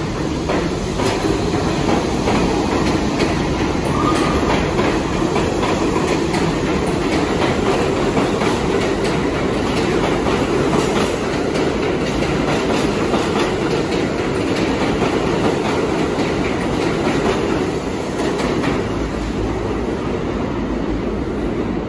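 New York City Subway train running past the platform, its wheels clattering over the rail joints in a steady loud rumble that eases a little near the end as the last cars clear.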